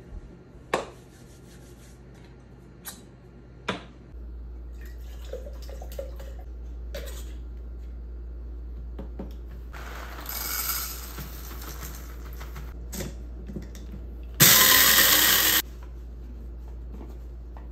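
Coffee-making gear being handled: a few sharp clicks and taps of a gooseneck kettle being set on its base, then a steady low hum. Later comes a short stretch of rushing noise, and near the end about a second of loud hissing that stops abruptly.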